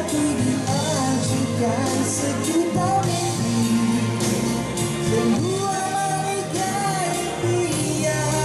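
A man singing live into a microphone through a PA system, over amplified accompaniment with a steady beat.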